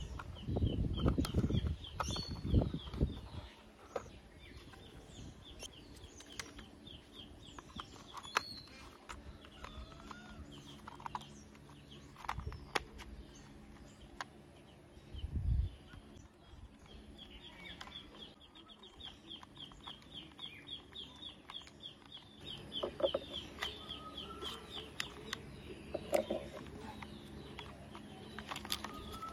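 Plastic toy vehicle parts being handled and knocked together, with a few clatters near the start and one about halfway through. Birds call in the background, with long runs of rapid high chirping and a few lower calls near the end.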